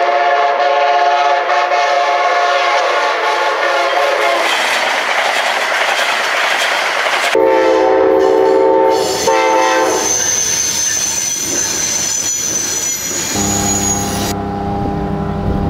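Train air horns and passing trains. A chord-like horn blast lasts about four seconds and gives way to the rush of a train going by. After a cut, a locomotive horn sounds twice, then the train rolls past with a thin, high wheel squeal. Near the end a new steady hum with a low drone sets in.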